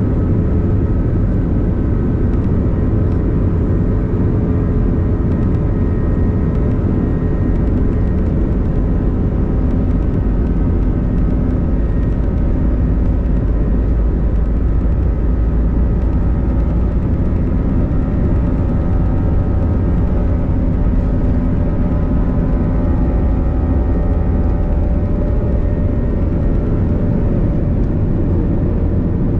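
Airbus A321 jet engines heard from inside the cabin: a loud, steady rumble with several whining tones that slowly sink in pitch.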